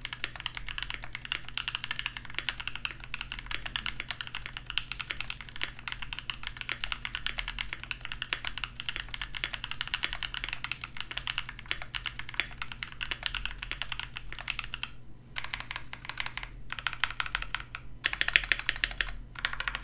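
Typing on a mechanical keyboard fitted with Gateron Cap V2 golden linear switches, factory-lubed and used stock: rapid, continuous keystroke clacks with a short pause about fifteen seconds in.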